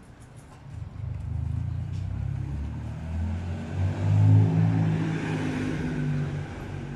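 A motor vehicle passing on the street: a low engine hum that builds about a second in, is loudest about four seconds in, and fades near the end.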